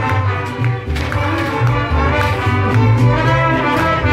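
Music with brass instruments over a bass line.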